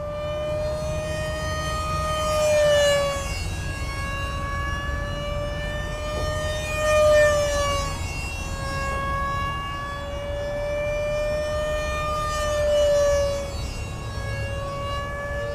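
A radio-controlled F-117 model jet's 64 mm electric ducted fan whining in flight: a steady high-pitched tone with overtones that wavers a little in pitch. It swells louder three times as the jet passes, and the pitch drops after each swell.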